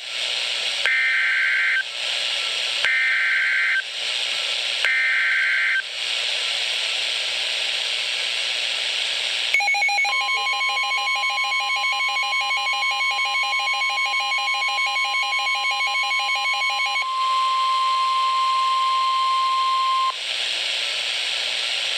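NOAA Weather Radio alert signals: three bursts of about a second each of the screechy two-tone SAME data header, then radio hiss. Then the steady 1050 Hz warning alarm tone sounds for about ten seconds. For the first seven seconds of the tone, a second, rapidly pulsing electronic alarm sounds over it.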